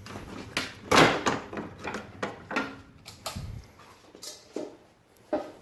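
A run of irregular clicks, knocks and rustles from plastic parts and wiring being handled, the loudest knock about a second in. A low hum underneath stops about halfway through.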